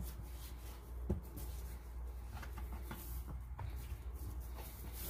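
Buttered puff pastry dough being folded and pressed flat by hand on a counter: faint soft handling sounds with a few light taps, over a steady low hum.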